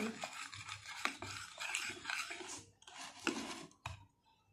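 A spoon stirring and scraping a thick mixture of glue and shaving foam around a plate, uneven scrapes broken by a few sharp clicks of the spoon against the plate.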